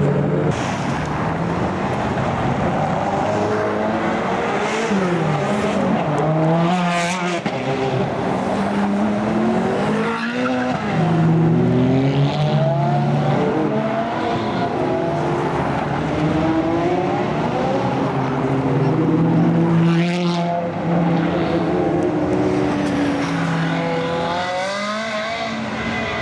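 Ferrari sports cars driving past one after another in slow traffic, their engines revving up and falling back without a break, with sharper revs about seven, ten, twenty and twenty-five seconds in.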